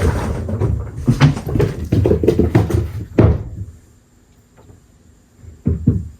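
Irregular knocking and rattling, like a door or cupboard being moved, busy for about three seconds, then quiet, with another short knock near the end.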